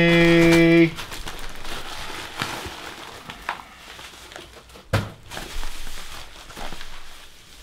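A held sung note ends about a second in. Then comes the rustle and crinkle of a cardboard box and plastic wrapping being handled as a parcel is unpacked, with scattered clicks and a knock about five seconds in.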